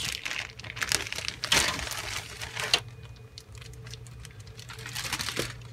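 Clear plastic kit bag crinkling as grey styrene sprues are lifted and shifted inside it. It comes in bursts, busiest in the first three seconds and again near the end.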